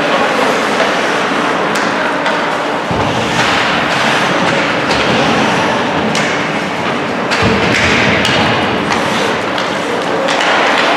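Ice hockey game play in an arena: a steady wash of noise with a few heavy thuds, about three and seven and a half seconds in.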